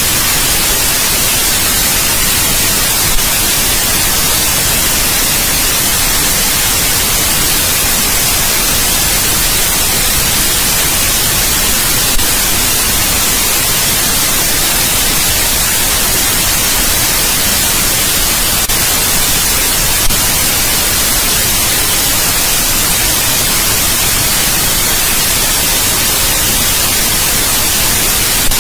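Steady white noise: an even, unchanging hiss across the whole range, bright and hissy at the top. A few brief clicks sound about every eight seconds.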